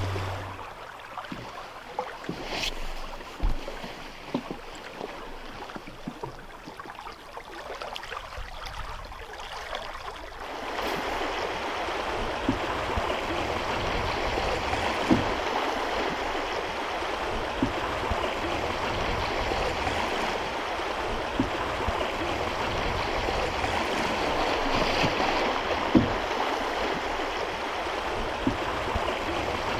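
River water flowing steadily, louder and fuller from about a third of the way in, with scattered light knocks. A low hum stops in the first second.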